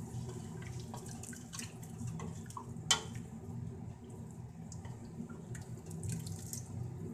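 Wooden spoon stirring a thin, watery curry in a steel pot: liquid sloshing, with light clicks of the spoon against the pot and one sharper knock about three seconds in, over a low steady hum.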